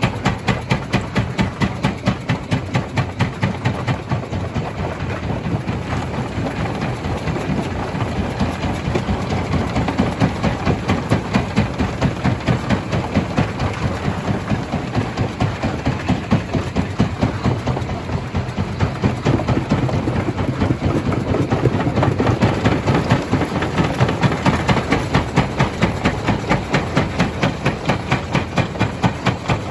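Small stone jaw crusher running, with a steady rhythmic pounding of about three beats a second.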